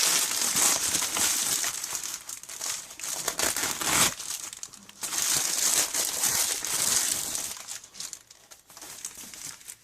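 A packaging bag crinkling as it is cut open with a pocket knife and handled, in two long stretches: the first stops about four seconds in, the second runs from about five to seven and a half seconds, then quieter handling follows.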